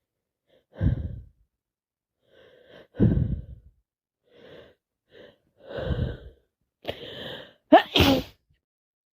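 A woman with a heavy head cold sneezing several times, with gasping in-breaths between the sneezes. The loudest, voiced sneeze comes near the end.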